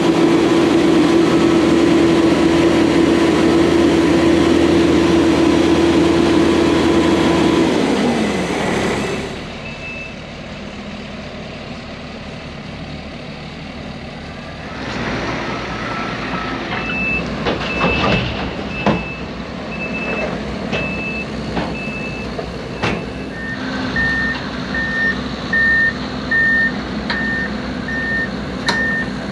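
A heavy construction machine's engine runs loudly and steadily, then drops in pitch and winds down about eight seconds in. Later, backup alarms on the working machines beep at an even pace, first a higher-pitched one, then a lower one, with a few knocks along the way.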